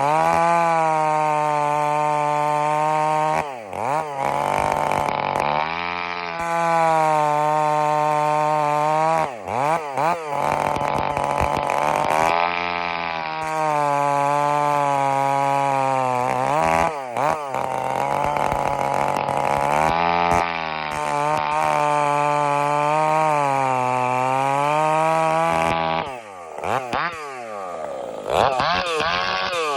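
Stihl 046 two-stroke chainsaw with a pipe-type muffler running at high revs, the throttle let off and opened again about five times, the pitch falling near the end as it drops back.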